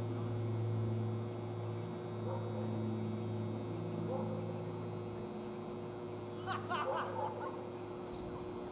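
Steady low electrical hum with faint, distant voices under it, and a brief burst of louder sound about six and a half seconds in.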